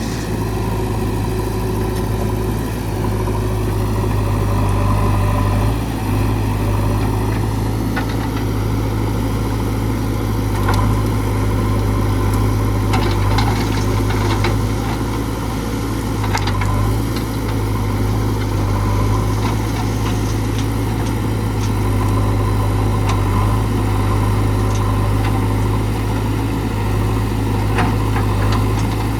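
JCB 3DX backhoe loader's diesel engine running steadily with a deep, even drone. Scattered short knocks sound over it.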